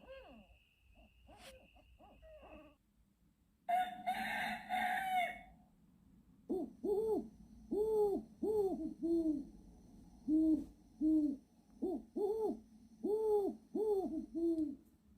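Recorded animal calls: one drawn-out crowing call about four seconds in, then a regular run of short hoots, about one and a half a second.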